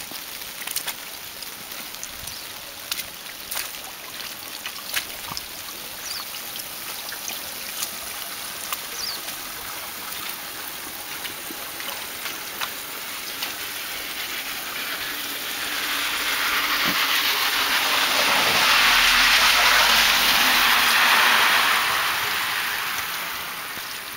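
Steady hiss of wet snow and slush in a snowbound street, with scattered faint ticks. Past the middle, a rushing, splashing hiss swells for several seconds, then fades near the end.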